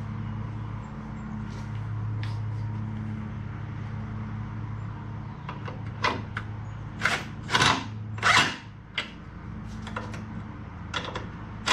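A handful of sharp knocks, four or five spread over about three seconds from about six seconds in, as the glider's wooden and metal parts are knocked together during assembly. A steady low hum sits under them.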